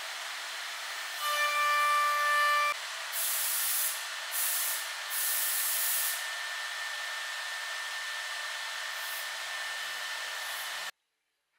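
Steady hiss of a woodworking machine running, with a brief whine a little over a second in and three short, louder bursts of high hissing between about three and six seconds. The sound cuts off abruptly about a second before the end.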